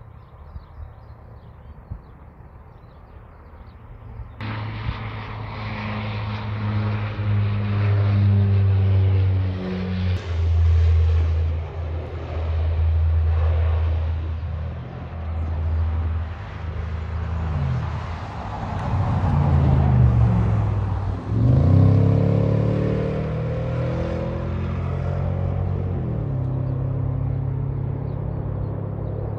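Saab 340B twin turboprops on a landing: a steady propeller drone with strong low tones that comes in abruptly about four seconds in. Around twenty seconds the propeller tone sweeps down and back up and grows louder as the blades change pitch on the landing roll.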